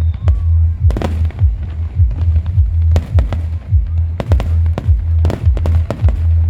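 Fireworks bursting and crackling in quick, irregular bangs over loud music with a heavy pulsing bass beat.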